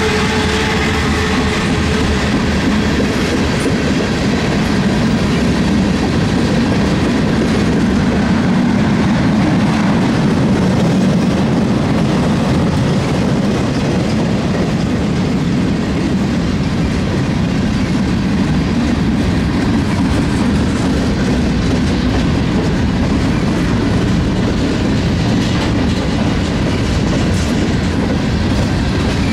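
Freight cars of a Norfolk Southern mixed freight train rolling past: a steady, loud rumble of steel wheels on rail with clattering over the track.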